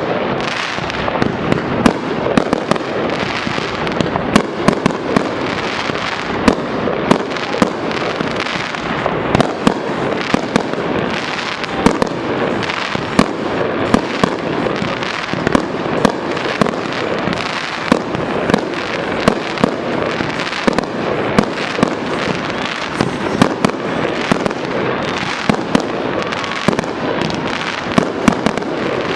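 A dense, continuous barrage of fireworks: a thick wash of crackling with many sharp pops and louder bangs spiking through it, several every few seconds.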